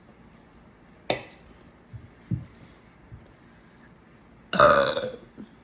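A woman burping on command: a short sharp burst about a second in, then one long, loud burp lasting about half a second near the end.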